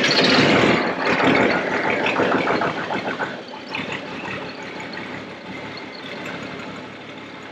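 Case 1270 tractor's diesel engine just after a cold start, having sat all winter. It runs loudly at first, then eases and settles into a steadier idle over the next few seconds.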